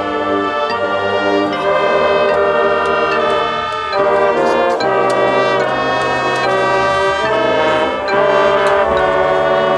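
High school marching band's brass playing loud, sustained chords that change every second or two.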